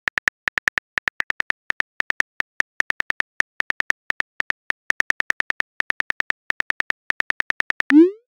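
Phone keyboard typing sound effect: rapid, uneven key clicks, several a second, as a text message is typed out. Near the end a short rising swoosh plays as the message is sent.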